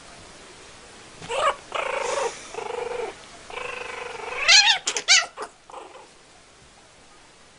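Kitten yowling during a play-fight with a puppy: a string of drawn-out cries starting about a second in, then a wavering rising-and-falling cry and a few short sharp cries, dying away after about six seconds.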